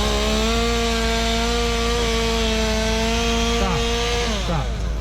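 Stihl MS 201T top-handle two-stroke chainsaw at full throttle, cutting wood with a steady high engine note. About four and a half seconds in the throttle is released and the engine drops back toward idle.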